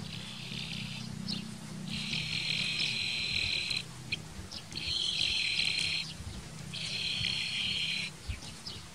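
Insects buzzing in four high, hissing bursts of one to two seconds each, over a faint low steady hum.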